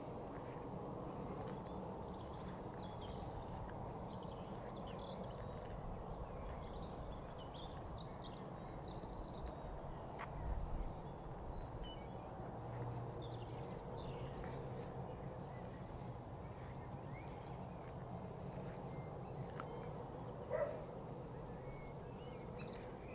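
Scattered small bird chirps over a steady low background rumble, with two brief soft knocks, one about halfway and one near the end.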